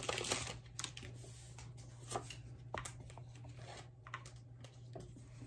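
Soft crinkle of a foil trading-card booster-pack wrapper as the cards are slid out, then a few faint ticks of the cards being handled, over a steady low hum.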